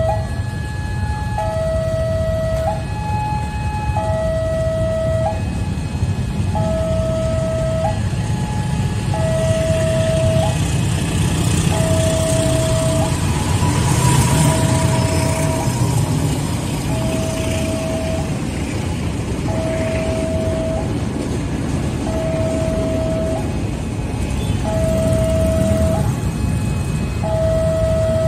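Railway level-crossing warning alarm sounding a repeating two-note electronic signal, a low note and a higher note alternating about every two and a half seconds, over idling motorcycle and car engines. A passing train adds a heavier rumble, loudest about 14 seconds in.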